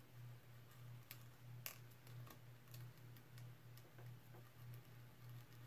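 Near silence: a faint low hum pulsing about three times a second, with a few faint clicks, the sharpest a little under two seconds in, as a sharp leather skiving knife is pushed straight down through a strip of 7 to 9 ounce leather onto a cutting mat.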